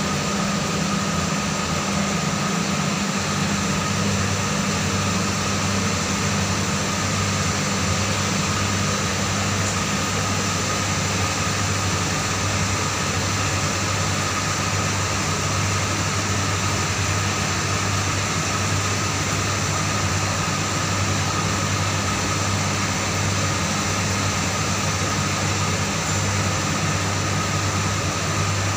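Steady machine hum: a low drone with a fainter high whine over an even hiss, unchanging throughout.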